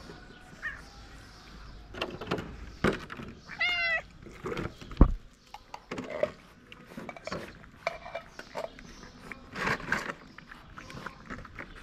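A stray kitten meows once, a bending, wavering call about three and a half seconds in, among scattered clicks and knocks from the cats feeding on canned food at the man's hands. A sharp thump about five seconds in is the loudest sound.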